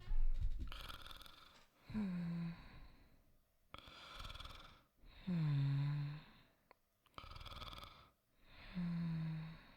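Soft snoring voiced by a voice actor for a sleep roleplay. Three short snores, each dropping in pitch as it goes, alternate with breathy out-breaths. There is a low rumble in the first second.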